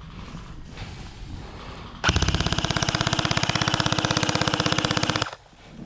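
An electric gel blaster firing one sustained full-auto burst, its motor and gearbox buzzing with a rapid stream of shots at roughly twenty a second. The burst starts about two seconds in, lasts about three seconds, and stops abruptly.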